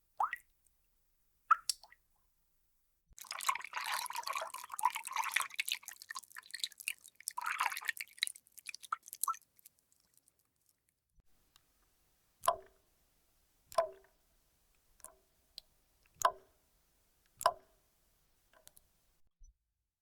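Water drop sound effects: a couple of single plopping drops, then a dense spatter of many small drops for about six seconds, then single drips with a ringing pitch falling about once every second and a bit.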